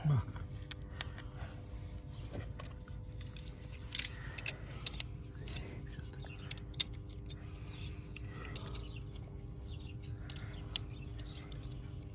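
Utility knife and cutting tool slitting and scraping the plastic outer sheath of a damaged underground power cable. Scattered small clicks and scrapes over a low steady hum, with a sharper snip at the start.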